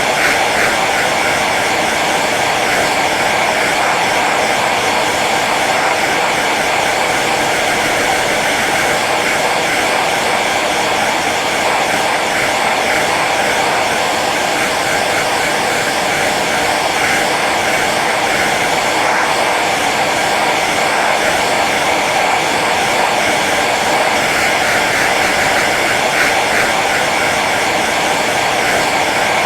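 Hair dryer running steadily on its low setting: an even whooshing blow of air over the motor's hum.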